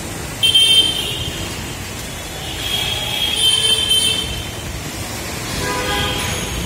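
Busy city street traffic noise beneath an elevated rail viaduct, with a loud high-pitched burst about half a second in, another from about three to four seconds in, and a short horn-like tone near the end.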